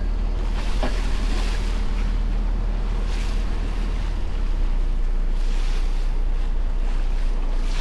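Boat out on the water: a steady low rumble with wind buffeting the microphone and water splashing in repeated swishes.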